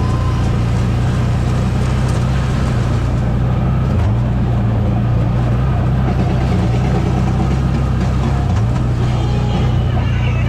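ATV engine running steadily under way, its pitch shifting slightly a couple of times.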